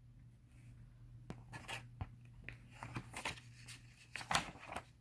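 A picture book's cover and pages being opened and turned by hand: faint paper rustles and light taps, loudest near the end.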